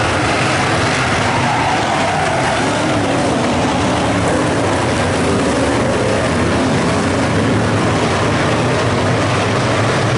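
A pack of USRA A-modified dirt-track race cars running together through a turn at race pace. Several engine notes overlap in a steady din, their pitch wavering up and down.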